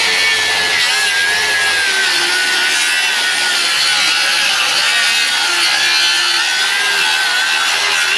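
Dewalt FlexVolt 60V 7-1/4-inch cordless circular saw with a Diablo Demo Demon blade ripping full depth through pressure-treated lumber. A continuous high motor whine sits over the blade's cutting noise, its pitch sagging slightly under load without stalling.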